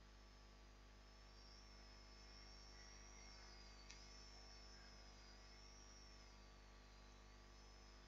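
Near silence: room tone with a faint steady hum and a faint high whine that slowly wavers in pitch, and one small click about four seconds in.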